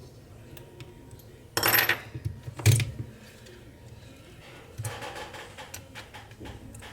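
Small metal repair tools and parts clinking on a hard work surface. There is a short clatter about one and a half seconds in, a sharp click about a second later, and lighter handling noise after that.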